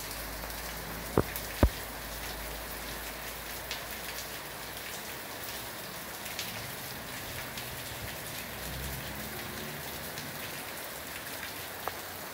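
Heavy rain falling steadily on plants, roofs and paving, with a few sharp taps of drops striking close by: two in the first two seconds and one near the end.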